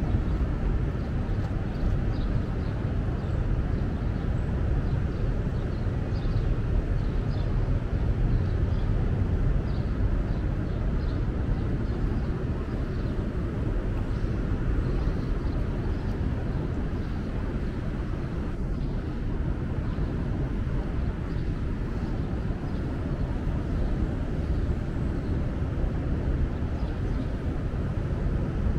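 Steady outdoor city ambience: a constant low rumble with no distinct events, with faint, short high chirps scattered through it.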